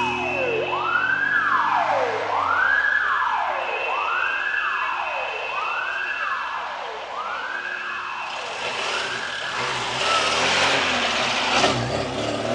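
Wailing siren of a vintage VB police Škoda, each wail rising quickly and sliding slowly down, about every one and a half seconds, with a steady higher tone coming and going. From about eight seconds in, a vintage sedan's engine passes close and covers the siren.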